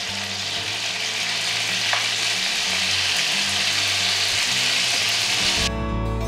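Marinated chicken pieces sizzling steadily as they fry in butter and oil in a non-stick pan. Background music comes in near the end.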